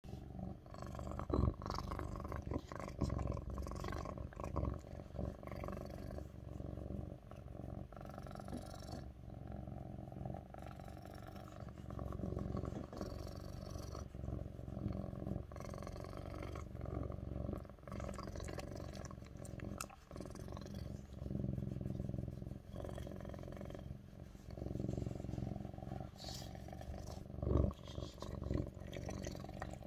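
Lynx point Siamese cat purring loudly and continuously, close to the microphone, with a few sharp thumps, the loudest about a second and a half in and near the end.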